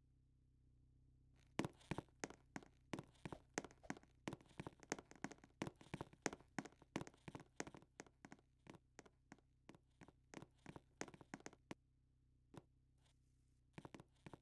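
A quick run of light, sharp taps, several a second, lasting about ten seconds, then a few scattered taps near the end, over a low steady hum.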